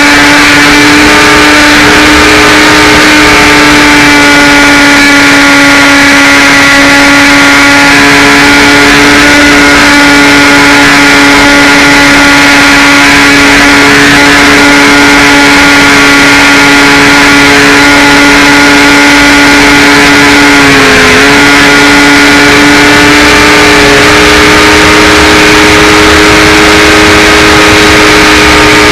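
Electric motor and propeller of an RC glider running at steady throttle: a loud, even whine that dips briefly about 21 seconds in before settling again, over a steady rushing hiss.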